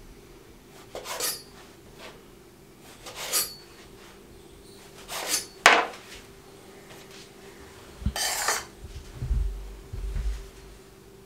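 A kitchen knife slicing the crusts off white bread slices on a wooden cutting board, three short scraping cuts about two seconds apart. Then a sharp clack as the knife is set down on the board. Near the end a spoon scrapes egg-mayonnaise filling and dabs it onto the bread with soft knocks.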